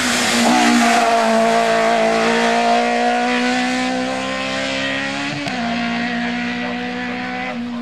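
Ford Escort Zakspeed BDA Group 4 race car passing at full throttle, its Cosworth BDA four-cylinder engine at high revs. It is loudest about a second in and fades as the car pulls away, with a gear change about five and a half seconds in.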